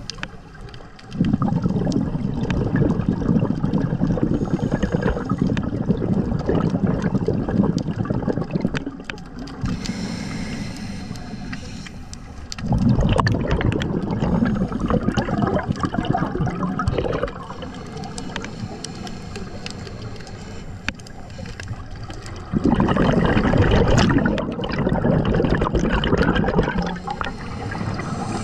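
Scuba diver breathing through a regulator underwater: three long exhalations of bubbling, starting about one, thirteen and twenty-three seconds in, with quieter inhalations between.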